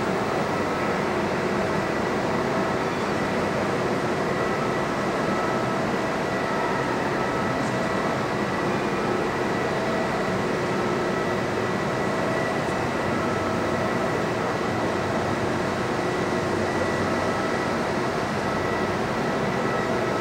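Steady hum and rush of air-handling in a large aircraft hangar, even throughout, with a few faint steady tones running through it.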